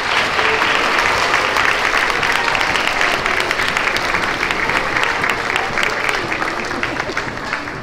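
Audience of young schoolchildren applauding after an award winner is named, a dense patter of clapping that tapers off near the end.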